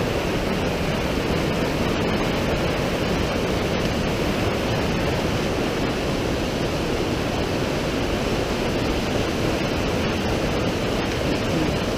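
Fast mountain creek in high flow, whitewater rushing and churning over boulders close by: a steady, even rushing noise with no let-up.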